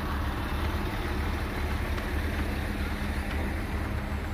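Heavy truck's diesel engine idling: a steady low rumble with a faint even hum above it.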